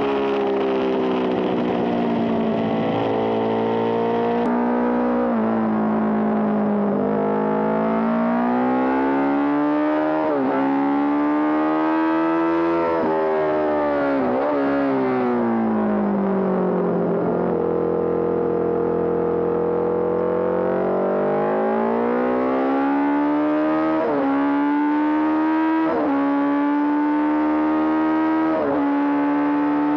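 Honda CB750 Four racer's air-cooled inline-four engine running hard at race pace, its pitch repeatedly climbing and then dropping through gear changes and corners. There are quick sharp dips in the revs about ten and fourteen seconds in.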